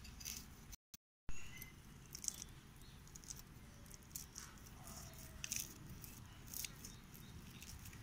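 Small river fish being scaled by hand against a fixed cutting blade: irregular light scraping and clicking as the scales come off. The sound drops out briefly about a second in, followed by a sharp click.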